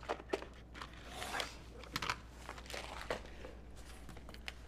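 Soft rustling and crinkling with scattered small clicks and taps as crafting materials (fabric, an acrylic ruler, button packets) are handled on a work table, with a longer rustle about a second in.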